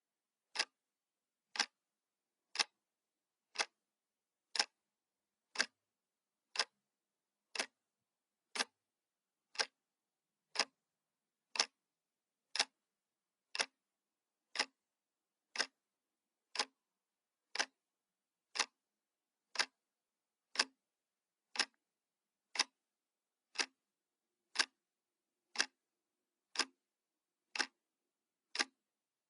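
Clock ticking sound effect: single sharp ticks, one each second, evenly spaced, with silence between them.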